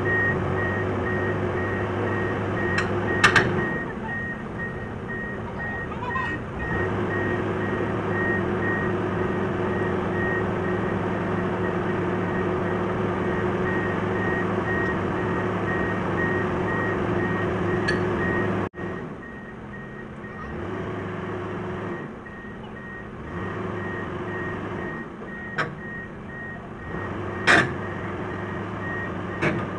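SANY SR285R rotary drilling rig's diesel engine running under load with its travel alarm beeping rapidly as the crawler tracks move it off the low-loader. A few sharp metallic clanks come from the tracks and trailer. About two-thirds of the way through, the sound drops suddenly and the beeping stops.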